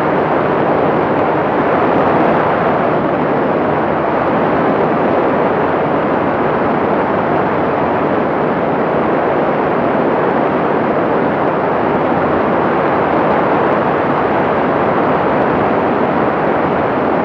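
Light aircraft in level cruise: a steady, unbroken rush of airflow mixed with engine drone, as picked up by an onboard camera.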